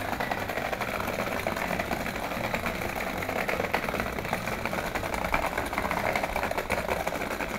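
Homemade doodle bot, a tin with marker-pen legs shaken by a small vibration motor, rattling steadily as it skitters over paper, its marker tips pecking dots with rapid ticks. The rattle cuts off suddenly at the end.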